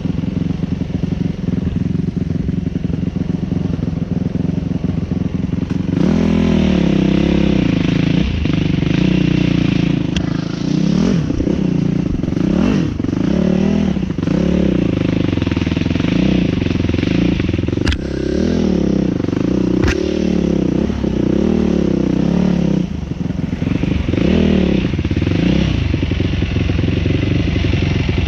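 Enduro dirt bike engine riding a trail. It runs steadily at first, then from about six seconds in gets louder and rises and falls again and again as the throttle is opened and closed. Two sharp knocks come near the middle.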